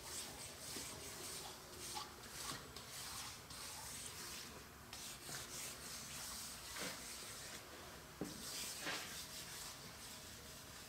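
A bare hand wiping light oil across a boring mill's slotted metal table, a series of faint, irregular swishing rubs.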